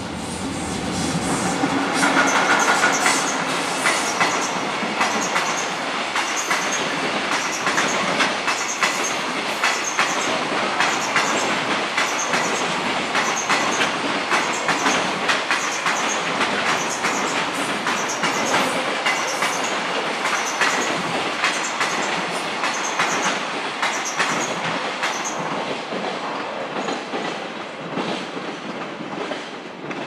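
Container freight train wagons rolling past at close range, wheels clattering steadily over the rail joints; the noise eases off over the last few seconds as the end of the train passes. A level-crossing alarm rings at an even beat, about one and a half rings a second, throughout.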